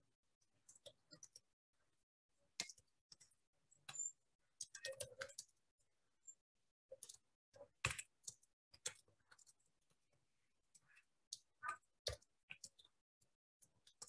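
Faint, irregular computer keyboard keystrokes and mouse clicks, single clicks and short quick runs with pauses between.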